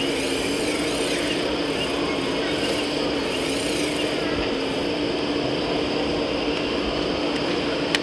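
Hydraulic pump of a scale RC Liebherr 960 SME excavator model running with a steady, constant hum while the bucket works over a truck's tipper body. A sharp click near the end.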